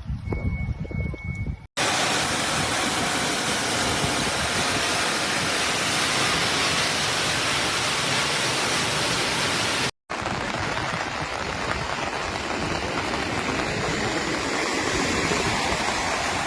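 Loud, steady rush of water, with no pitch to it, in two clips cut together about eight seconds apart. A quieter stretch with a faint high tone comes before the first cut.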